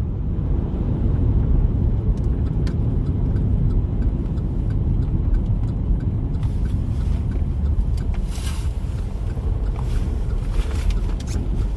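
Car driving: a steady low road and engine rumble heard from inside the cabin, with a few faint clicks and a brief hiss about eight seconds in.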